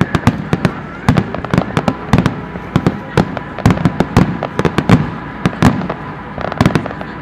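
Aerial firework shells launching and bursting in quick, irregular succession: several sharp bangs a second over a low, steady rumble.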